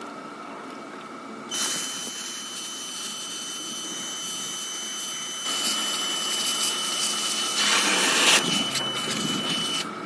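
A power tool cutting through the sheet-metal side pillar of a Ford Crown Victoria body. It starts about a second and a half in as a harsh hiss with a steady high whine, and grows louder in the second half.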